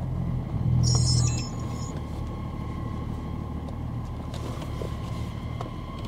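BMW E39 530d's three-litre M57 straight-six diesel running at low speed as the car rolls forward, a little louder for a moment about a second in, with a short high squeak at the same moment.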